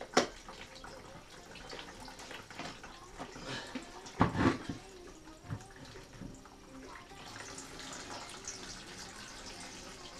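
Hot melted beeswax and water running and dripping out of a cloth filter squeezed in a wooden press into a plastic bucket. The press and its clamps knock sharply just after the start and clatter louder about four seconds in.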